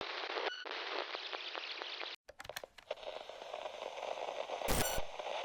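Crackling radio-style static with scattered ticks cuts out suddenly about two seconds in. A few clicks follow, then a wider hiss, broken near the end by a short, harsh buzzing glitch: signal-interference sound effects of a corrupted broadcast tape.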